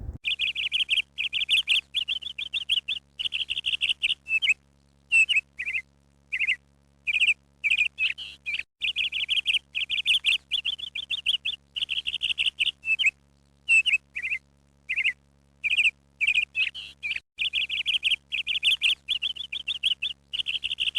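A small bird chirping and twittering in quick short trills, almost without pause, over a faint steady low hum.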